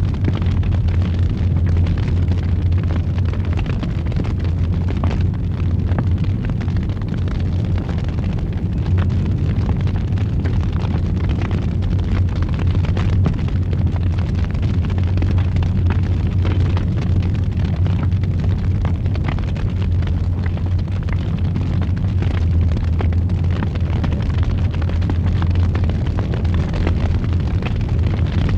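Fire burning in a fireplace: a steady low roaring with frequent small crackles and pops.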